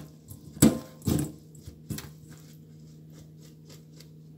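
A hand pressing a paper tissue onto wet small fish in a stainless steel colander: a few sharp knocks and rustles in the first two seconds, then faint scattered ticks over a steady low hum.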